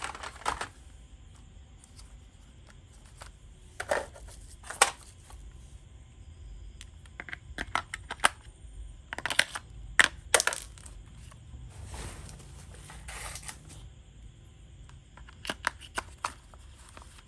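Handling of a toy gun and its packaging: irregular sharp plastic clicks and knocks, with a longer stretch of rustling about twelve seconds in.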